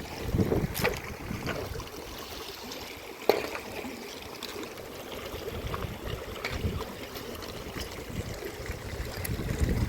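Running water of a stream, a steady rushing and trickling, with wind buffeting the microphone in the first second and a single sharp knock about three seconds in.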